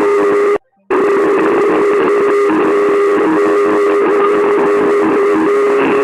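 Mock emergency-alert alarm: a loud, harsh tone held at one steady pitch over a noisy edge. It cuts out briefly just over half a second in, then resumes unchanged.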